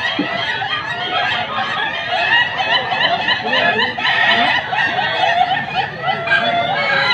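Several ayam ketawa roosters crowing at once. Each crow is a long run of quick, rapidly repeated notes that sound like a person laughing, and the crows overlap into continuous chatter.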